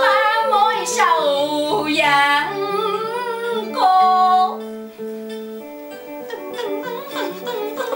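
A woman singing karaoke into a microphone over a backing track, holding wavering notes. Her voice stops about halfway through and the backing music carries on, quieter.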